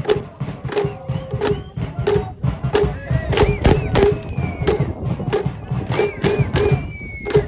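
Cheering-section percussion at a baseball game: sharp, regular beats about three times a second, with crowd shouts over them.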